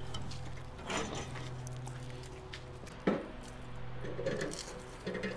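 Light clinks and knocks of utensils, as when oil and bouillon are stirred in a bowl, with one sharper knock about three seconds in, over a steady low hum.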